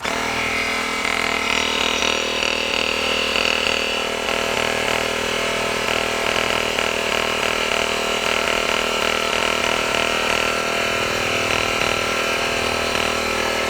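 A 12 V portable piston tire air compressor running steadily under load as it pumps air into a balloon. It makes a fairly loud, even mechanical drone from its small motor-driven piston, with no change in pace.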